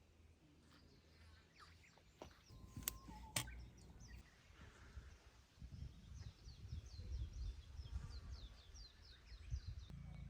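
A bird singing a rapid series of short, high, downward-sliding chirps in the second half, over a low rumble. Two sharp clicks come close together about three seconds in.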